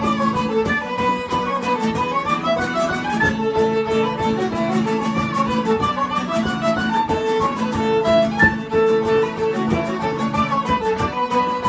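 An Irish reel set played on fiddle and tin whistle, with bodhrán and strummed guitar accompaniment. It is a fast, unbroken stream of short melody notes over a steady drum beat.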